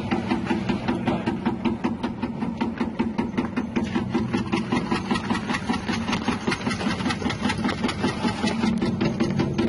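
Electric chip-slicing machine with a 180-watt motor running steadily, its spinning blade chopping a tuber into crinkle-cut slices with a rapid, even run of cutting clicks over the motor's hum.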